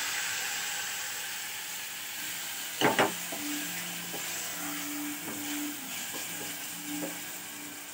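Mutton and onions sizzling as they fry in a pressure cooker while being stirred with a wooden spatula, with two sharp knocks of the spatula against the pot about three seconds in. The meat has just been added to the fried onions.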